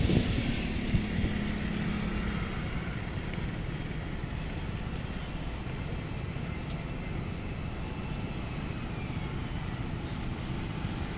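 Motor traffic at a city intersection: a steady rumble of cars and scooters, with a low engine hum in the first couple of seconds and a brief louder rush at the very start.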